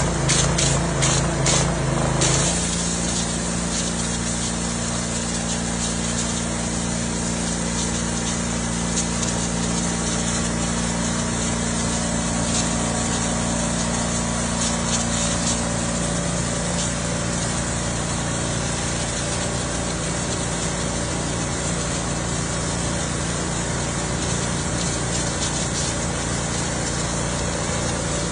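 Pressure washer running steadily: a constant motor hum under the hiss of its spray, a little louder and more uneven for the first couple of seconds.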